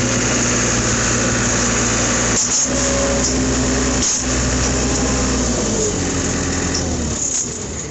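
Vehicle engine running steadily, then slowing and dying away near the end as it is shut off.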